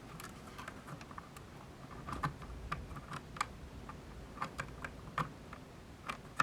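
Light, irregular clicks and taps of hard plastic: acrylic case sheets and their small hardware being handled and fitted together, about a dozen small knocks spread unevenly.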